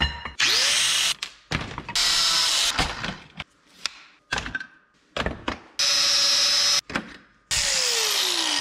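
Angle grinder working square steel tubing clamped in a vise, heard as several short loud bursts that start and stop abruptly. A whine rises as the grinder spins up just after the start, and near the end its pitch falls steadily as it winds down.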